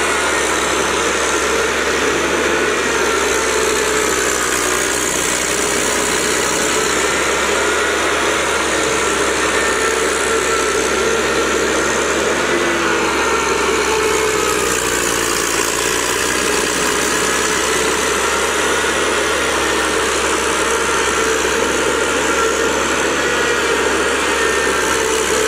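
Engine of an amphibious mud tractor running steadily, its speed wavering slightly.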